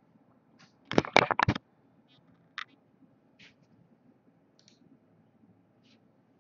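A quick cluster of sharp clicks and knocks about a second in, followed by scattered faint ticks.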